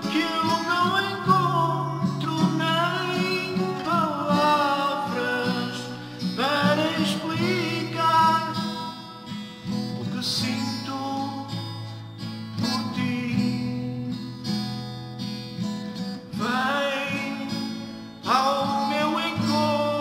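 A man singing to his own cutaway acoustic guitar accompaniment.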